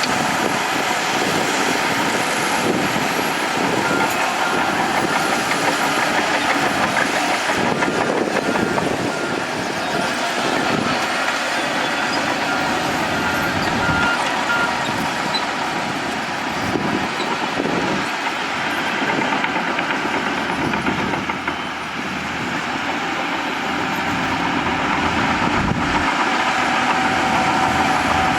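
Heavy earthmoving machinery, a bulldozer at work, running steadily under load, with a reversing alarm beeping in short, evenly spaced pulses for several seconds in the first half.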